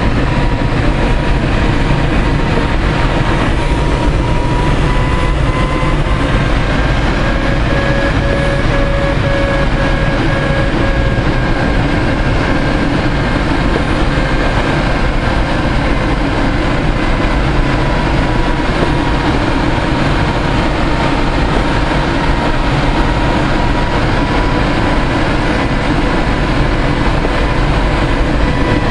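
Steady, loud rush of airflow in a Ventus cT sailplane's cockpit in flight, with a few faint thin tones that drift slowly up and down in pitch.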